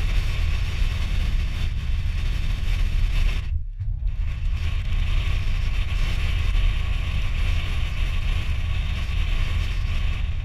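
Wind and road noise on a vehicle-mounted camera while driving: a loud, steady rush with a deep rumble, broken by a brief dropout about three and a half seconds in.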